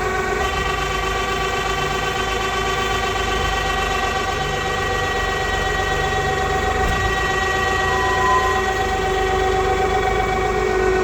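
Straw baling press machine running with a steady, unchanging whine and a low rumble underneath.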